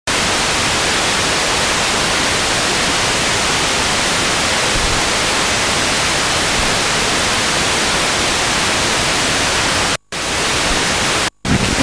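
Sony ST-SE520 FM tuner, fitted with new 110 kHz ceramic IF filters, giving a steady loud hiss with no station on 87.50 MHz. The hiss cuts out briefly twice near the end as the tuner is stepped up the band.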